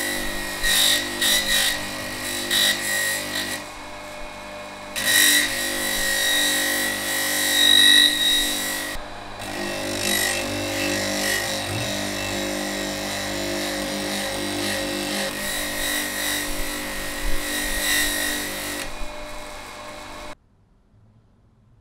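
Electric motor spinning a polishing wheel, with a steady hum under the rasping hiss of a steel axe head pressed against the wheel. The rasp comes and goes as the steel is moved on and off, easing off around four seconds in and briefly near nine seconds. All sound cuts off suddenly near the end.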